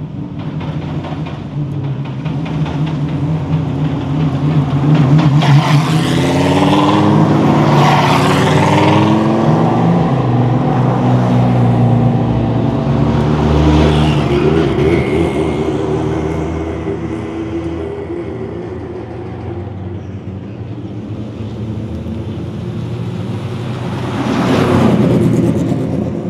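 Race car engines running on a street, loud and close. About five seconds in, one revs up and pulls away with its pitch climbing. Another engine swells in the middle, and a car passes close near the end.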